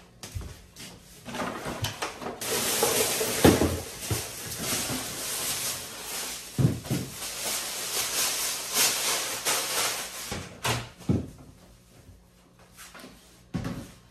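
A plastic shopping bag rustling and crinkling as it is handled, with a few dull knocks in between. The rustling stops about ten seconds in, and a couple more knocks follow.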